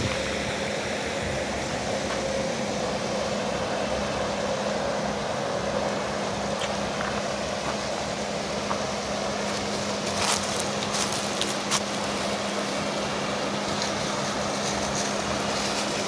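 Mountain creek rushing over rocks: a steady, even rush of water, with a low steady hum underneath and a few faint clicks near the middle.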